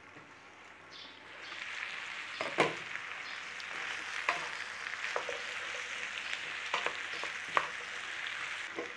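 Sliced potatoes, swede and onion sizzling in a frying pan while a wooden spatula stirs them, with a few light knocks of the spatula against the pan. The sizzle grows louder about a second and a half in.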